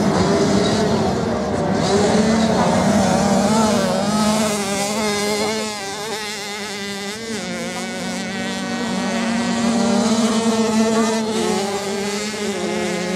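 Motocross bike engines running at speed on the race course, the pitch rising and falling with the throttle over a steady lower engine drone.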